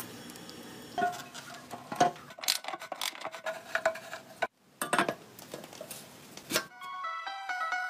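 Metal motorcycle parts and hand tools clinking and knocking as they are fitted, a few strikes leaving a short metallic ring. Light plucked or mallet-struck music comes in near the end.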